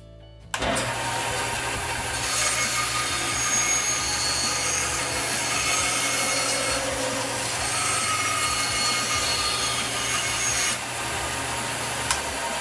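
A woodworking power tool running with a steady motor hum while cutting or abrading wood, a loud rasping noise that starts abruptly about half a second in. Near the end the rasping eases off, and the motor hum then cuts off with a click.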